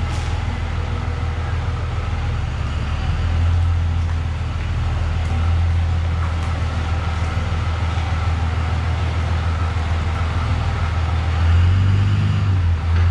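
Cummins diesel engine of a heavy-duty Dodge Ram pickup running as the truck drives slowly in, a steady low rumble that swells twice, about three seconds in and again near the end.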